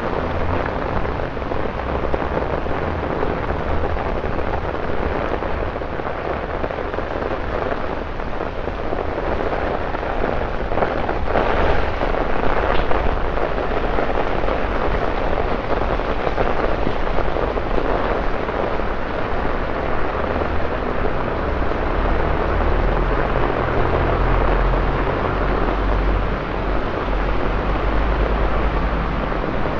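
Heavy rain falling steadily on wet pavement, with a low rumble underneath that comes and goes. The rain swells briefly louder about twelve seconds in.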